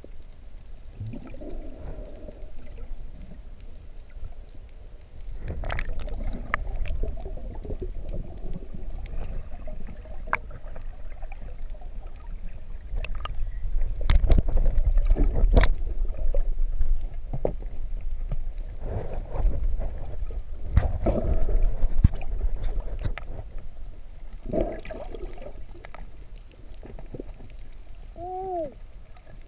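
Water sloshing, gurgling and bubbling around an underwater camera, with a low rumble and scattered clicks and knocks as the diver moves; the water noise is loudest about halfway through, when the camera is near the surface. A short rising and falling tone sounds near the end.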